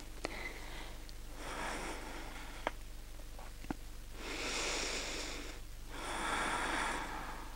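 A woman breathing slowly and deeply as she recovers her breath after exertion: a faint breath about a second and a half in, then two longer, louder breaths in the second half.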